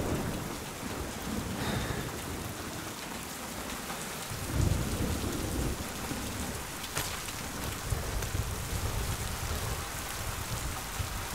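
Heavy rain falling steadily, with low rumbles under it, the loudest about four and a half seconds in.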